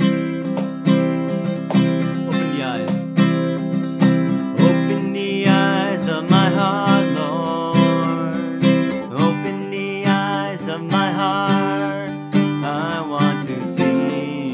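Acoustic guitar strummed in a steady rhythm, with a man starting to sing along about five seconds in.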